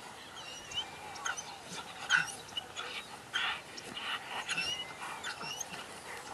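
Belgian Malinois panting hard with short high-pitched whines, excited and straining on its leash toward a bite rag.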